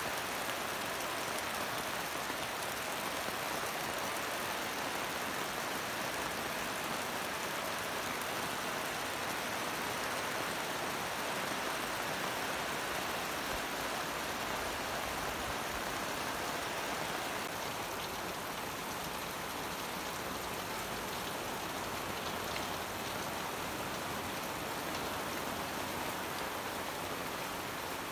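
Heavy tropical rain pouring steadily onto pavement and parked cars, a dense even hiss that eases slightly about two-thirds of the way through.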